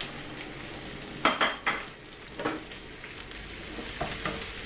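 Sliced ginger, onion and freshly added chopped garlic sizzling steadily in hot oil in a pan. A spatula stirs and scrapes, with a few short clatters about a second in and near the end.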